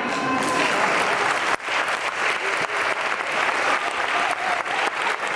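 Audience applauding: a dense patter of many hands clapping.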